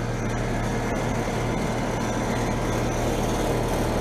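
Outdoor heat pump unit running in heat mode: a steady compressor hum with the rush of its condenser fan.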